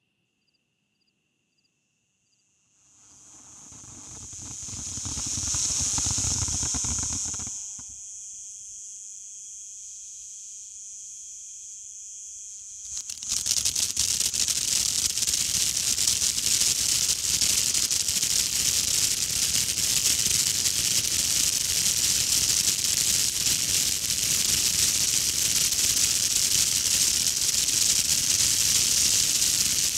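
Ground firework fountain (200-gram, Cutting Edge 'Ninja') burning: a hissing spray of sparks swells up a few seconds in and dies back, holds a lighter hiss, then about halfway through breaks into a loud, dense hissing spray with fine crackling that runs on.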